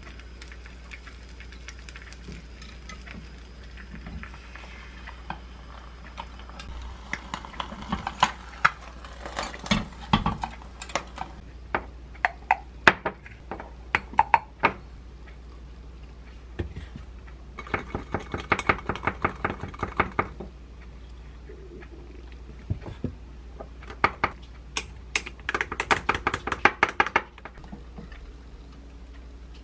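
Kitchen utensil sounds: scattered clicks and knocks of things being handled. Then two spells of fast, even clinking as a protein shake is stirred in a drinking glass. A steady low hum runs underneath.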